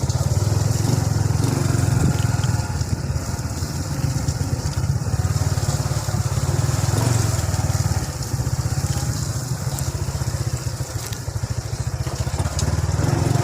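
Small motorcycle engine running steadily under way, with even firing pulses throughout.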